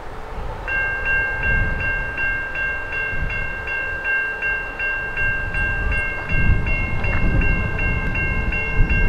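A railway warning bell starts ringing about a second in and keeps a steady fast ring, about three a second. Under it is the low rumble of an approaching Norfolk Southern freight train's diesel locomotives, which grows louder after about six seconds.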